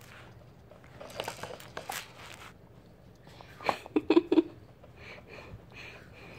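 A baby sucking and gumming a mesh fruit feeder filled with grapes: soft wet smacking and crackling, with a quick run of four short, louder sounds about four seconds in.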